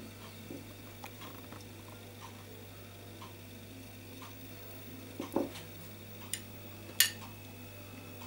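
Metal spoon lightly tapping and clicking against sponge cake layers and plates as cherry jam syrup is spooned over them, with a sharper clink about seven seconds in. A low steady hum underneath.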